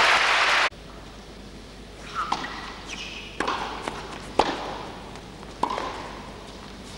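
Arena crowd applauding, cut off abruptly under a second in. Then a tennis point on a carpet court: sharp strikes of the ball about once a second, with short squeaks of shoes on the carpet.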